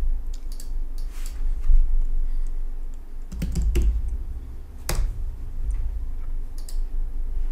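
Typing on a computer keyboard: scattered keystrokes in a few short runs over a low steady hum.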